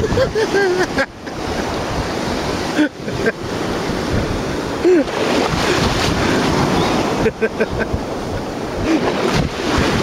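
Sea surf rolling and washing in, with wind on the microphone.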